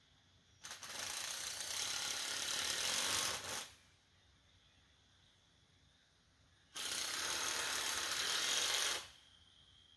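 Handheld power tool running in two bursts, the first about three seconds long and the second about two, with a pause of about three seconds between them.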